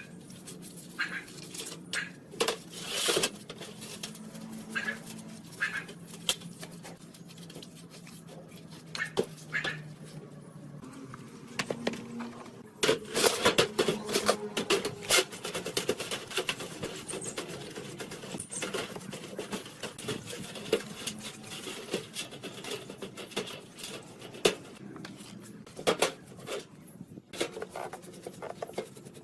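Irregular knocks and clicks of hand work on metal parts, with a busier stretch of scraping and rapid knocking about halfway through.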